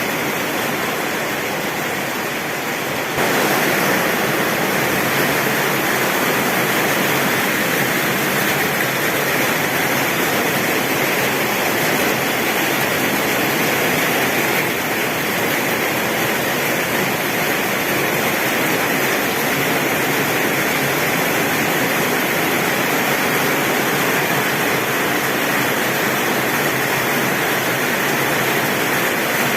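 Heavy rain drumming steadily on a tin roof, a dense even hiss with no thunder, stepping up suddenly in loudness about three seconds in.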